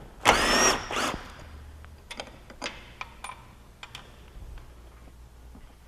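Handheld power tool backing out a cab hold-down bolt on a skid steer. It runs in a half-second burst with a rising whine, then a shorter burst about a second in, followed by scattered metallic clicks and knocks as the bolt and tool are handled.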